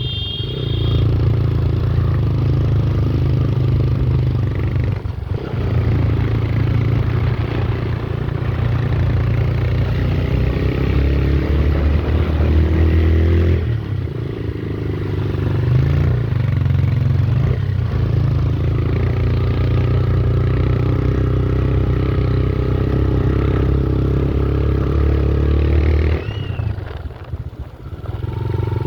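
Motor vehicle engine running steadily under a heavy low rumble, its pitch drifting up and down, then easing off briefly near the end.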